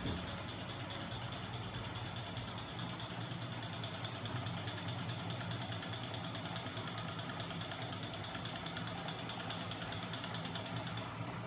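Homemade magnet engine rig running, its small 12 V DC electric motor driving the magnet-coupled crankshafts: a steady mechanical hum with a high whine that stops near the end.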